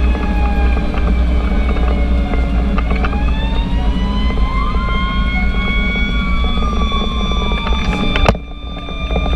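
Emergency siren wailing in slow rising and falling glides over the heavy rumble of a fire engine on the road. A sharp click comes about eight seconds in, and the sound is briefly quieter after it.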